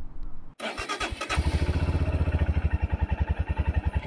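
Royal Enfield Himalayan's single-cylinder engine being started: a brief spell of cranking, then it catches about a second and a half in and settles into an even, fast-pulsing idle.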